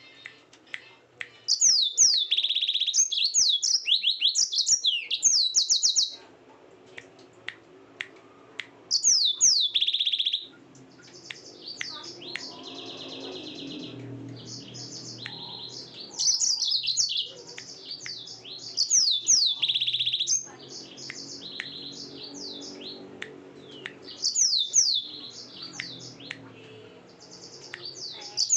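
Yellow-fronted canary (Mozambique canary) singing in about five bursts of rapid, high down-slurred whistles and trills, with short pauses between the phrases.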